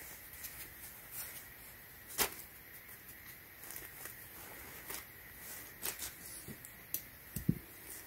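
Hands unfolding and handling a cotton T-shirt: faint fabric rustling with scattered light clicks, the sharpest about two seconds in, and a short low thump near the end.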